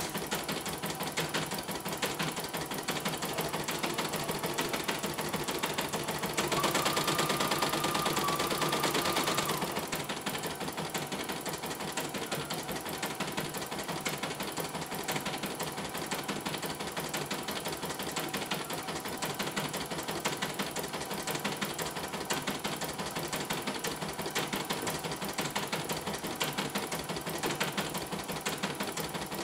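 CNY E900 portable computerized embroidery machine stitching a design: a fast, even clatter of needle strokes. Some seven seconds in there is a louder stretch of about three seconds with a steady whine over it.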